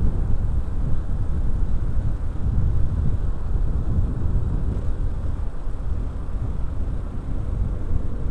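Steady low wind rumble on the microphone of a moving Honda Supra X 125 motorcycle, with its engine and road noise underneath.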